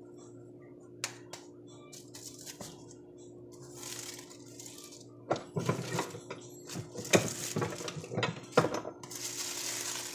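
Plastic bag sheets crinkling and rustling around a tortilla press as masa is pressed and handled, with a few sharp clicks early on and a run of knocks and clatter from the press plates from about five seconds in.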